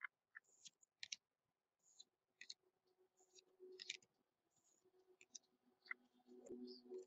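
Faint, scattered clicks and soft rustles of trading cards being handled and flipped through, one at a time, as a pack of cards is opened and sorted.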